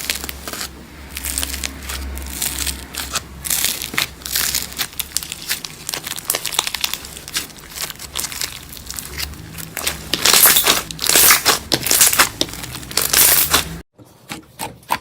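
Crunchy slime being squeezed and pressed by hand, giving a dense run of crackles and crunches that grows loudest about two thirds of the way through, then cuts off abruptly into a quieter stretch of crackling.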